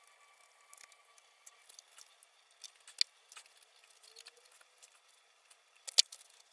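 Faint scattered clicks and light taps, with two sharper clicks about three and six seconds in.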